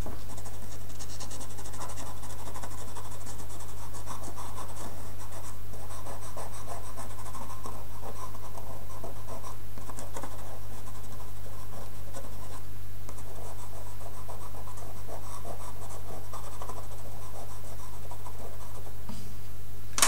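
A drawing pencil scratching across tinted paper in quick, short strokes, with a brief lull about two-thirds of the way in, over a steady low electrical hum.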